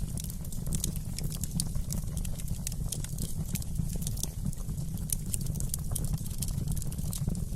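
Fire burning in a fireplace, crackling with frequent sharp, irregular pops and snaps over a steady low rumble of the flames.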